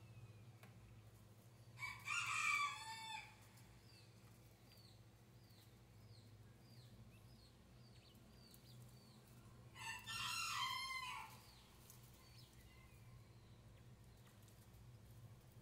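A rooster crows twice, about eight seconds apart, each crow lasting about a second and a half. Between the crows come faint, high, short falling peeps, about one or two a second, typical of newly hatched Chinese painted quail chicks.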